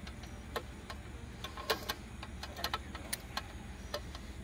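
Scattered sharp clicks and taps from gear being handled around the netted bear, about six in a few seconds at uneven spacing, over a steady low hum.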